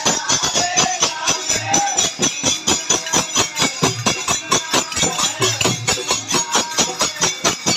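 Devotional kirtan music: a fast, even beat of hand percussion with jingles, with short melodic phrases over it.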